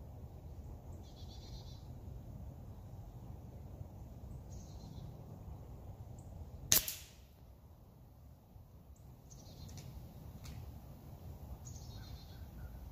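A single shot from an HW 97 spring-piston underlever air rifle: one sharp crack about seven seconds in, as the pellet clips the head off a Q-tip on the target block. A few faint bird chirps come and go.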